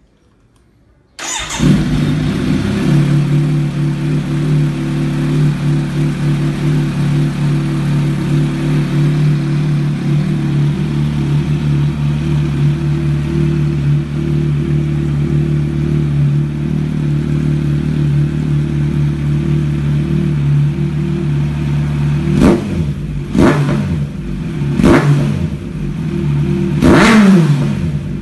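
Kawasaki Z900 inline-four motorcycle engine with an aftermarket sport slip-on exhaust, starting about a second in and settling into a steady idle. Near the end it is revved four times in quick blips.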